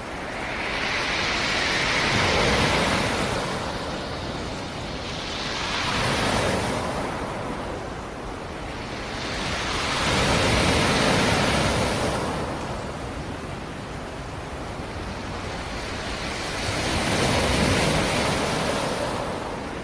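Sea surf: waves rolling in and breaking on the shore, four swells of rushing wash a few seconds apart, with a steady hiss between them.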